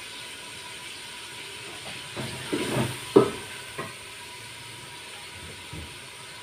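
Onions frying in ghee in a metal pot, a steady sizzle, with a few knocks of the ladle against the pot between about two and four seconds in.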